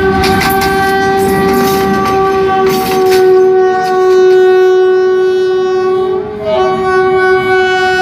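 Pakistan Railways RGE-24 diesel locomotive's horn sounding as the locomotive passes close by: one long blast of about six seconds, a brief break, then a second blast near the end. Wheels clatter over the rails during the first few seconds.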